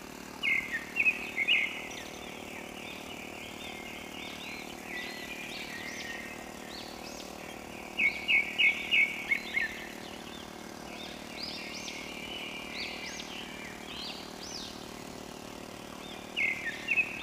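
Birds chirping in quick bursts of short rising-and-falling notes, loudest about half a second in, around eight seconds in and near the end. Under them a faint steady drone from the small engine of a walk-behind cultivator tilling the field.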